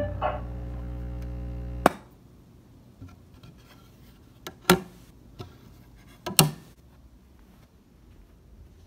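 Brunswick tube radio humming steadily through its speaker once the music has stopped, then a sharp click about two seconds in that cuts the hum off: the set being switched off. After it come a few scattered knocks and clicks of handling.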